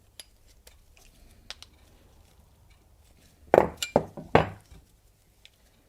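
Metal clinks and knocks of a hand tool working a bicycle pedal's lock nut in a final tightening: light ticks at first, then three or four sharp clinks about three and a half seconds in.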